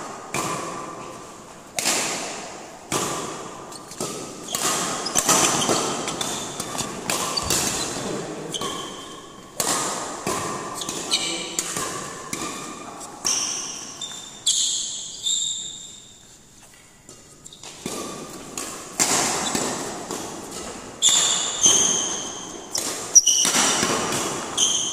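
Badminton rally: rackets striking the shuttlecock, sharp echoing hits about once a second, with a brief lull about two-thirds of the way through. Court shoes give short high squeaks on the floor between shots.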